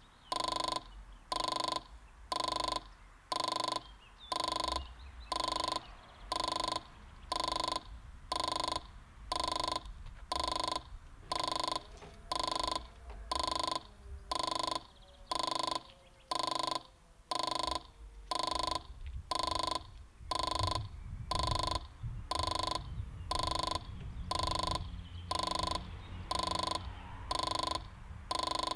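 Level crossing's electronic warning bell sounding a short pitched ding about once a second, the signal that a train is approaching. A low rumble builds in the second half.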